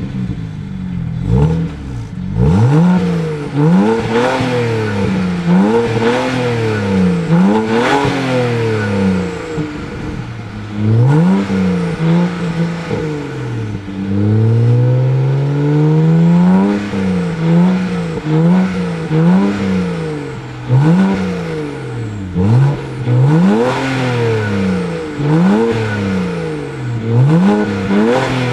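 BMW 335i Coupe's twin-turbo straight-six being revved repeatedly in short blips, the pitch rising and falling about a dozen times, with one longer, slower rev about halfway through.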